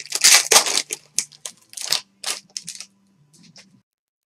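Crinkling and rustling of plastic as trading cards are handled and slipped into a clear sleeve: a quick run of sharp, irregular crinkles for about three seconds, dying away to near silence.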